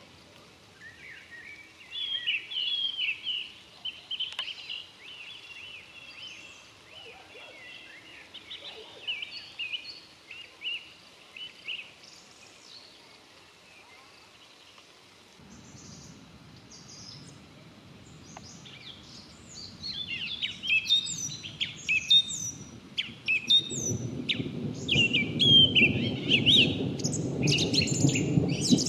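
Songbirds singing and chirping throughout, the calls busier and louder in the second half. About halfway through, a low rumble of distant thunder sets in, swelling much louder for the last few seconds.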